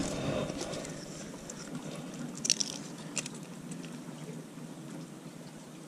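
Soft handling noises close to the microphone, with two short clicks about two and a half and three seconds in, over a faint steady hum.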